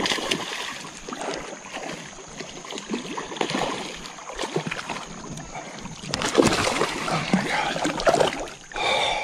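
A hooked smallmouth bass thrashing and splashing in shallow creek water, an irregular sloshing that is heaviest about six to eight seconds in as the fish is brought in and reached for by hand.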